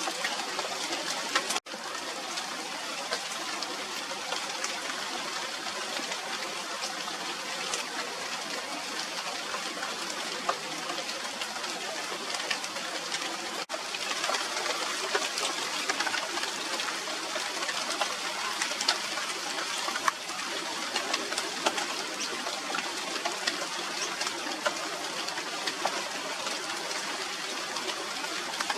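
Steady rain falling on the leaves of a flowering tree, a dense hiss with many individual drops ticking through it. The sound cuts out for an instant about one and a half seconds in and again near the middle.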